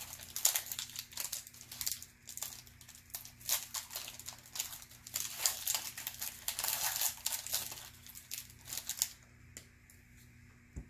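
Trading-card pack wrapper being torn open and crinkled by hand, a dense crackling run that stops about nine seconds in.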